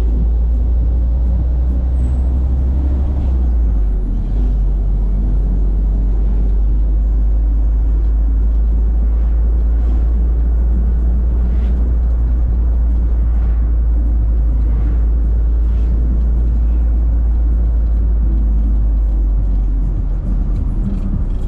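Steady deep rumble of a moving vehicle, engine and road noise, with no break.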